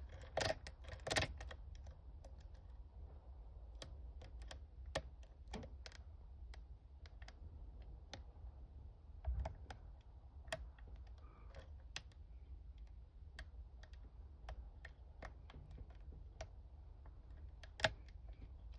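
Lock pick scrubbing across the pins of a Yale five-pin euro cylinder under tension: irregular light metallic clicks and scrapes, a few of them sharper than the rest.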